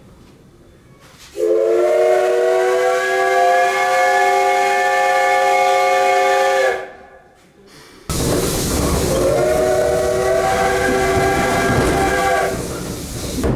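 Steam whistle of JNR C12 66, a C12-class tank locomotive, heard from a coach behind it. It gives two long multi-note chime blasts, the first about five seconds long with a slight rise in pitch as it opens. A loud rushing hiss starts suddenly about eight seconds in, and the second blast sounds over it. The whistles come as the train leaves a station.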